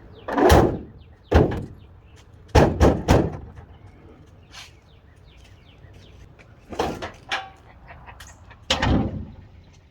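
A series of loud bangs and knocks in uneven clusters: two in the first second and a half, three in quick succession around three seconds in, then two more near the end.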